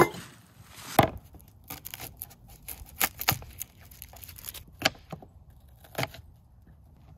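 A series of irregular sharp knocks and cracks, about six strong ones spaced one to two seconds apart with lighter ticks between, the sounds of camp-cooking work with a knife or firewood.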